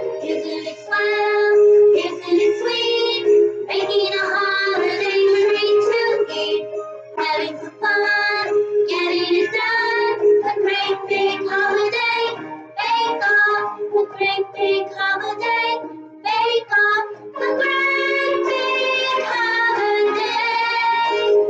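A children's song sung by a woman over a recorded musical backing track, in short melodic phrases.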